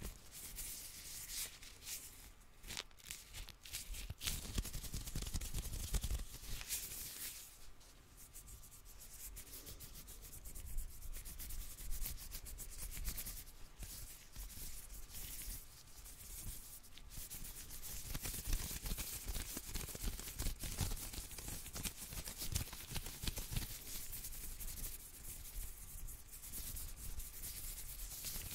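Hands in clear plastic gloves rubbing and crinkling close to a microphone: a continuous dense crackle of many small clicks and rustles, swelling and easing.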